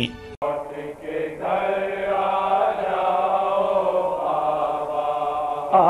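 Male voices holding one long chanted note at a steady pitch for about five seconds: the drawn-out opening of a noha, a Shia mourning lament for matam. The melody starts to move just at the end.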